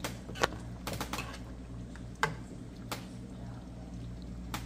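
A metal ladle clinking against the pot and the plate as curry gravy is spooned on: a few sharp clicks, irregularly spaced, over a steady low hum.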